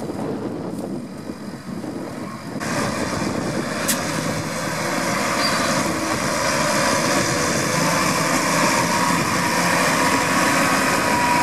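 Wind noise for the first couple of seconds, then a Case IH Magnum tractor's engine running steadily as it pulls a trailer along a dirt road, growing gradually louder as it comes closer. A single sharp click about 4 s in.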